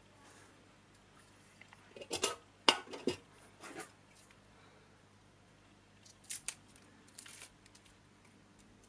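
Small metal blower parts being handled and fitted together on a workbench: a quick cluster of sharp clicks and knocks about two seconds in, the loudest just before the three-second mark, then a few lighter clicks around six to seven seconds.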